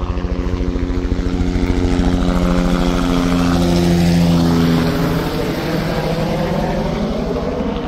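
Helicopter flying over: rotor chop over a steady engine drone, growing louder to a peak about four seconds in, then easing off.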